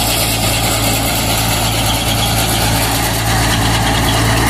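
A tractor-driven soybean threshing machine running steadily: a loud, even engine drone with a strong low hum and a wide spread of mechanical noise.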